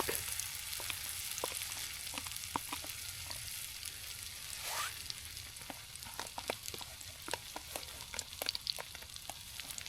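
Pancake batter sizzling in a hot pan: a steady frying hiss with scattered small crackles and pops.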